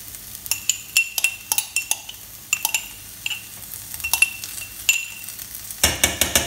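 A metal spoon clinking against a glass jar as whipped grated coconut is scooped and knocked out of it: a run of short, ringing clinks at an uneven pace, with a quicker burst of knocks near the end.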